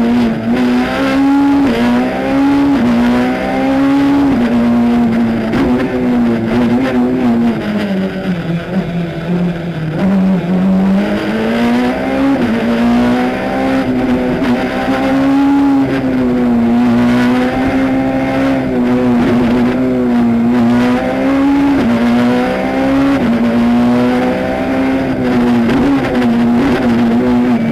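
Peugeot 207 S2000 rally car's naturally aspirated 2.0-litre four-cylinder engine, heard from inside the cockpit at full stage pace. The revs climb and drop over and over through quick gear changes. There is a longer drop around eight to ten seconds in, then it pulls hard again.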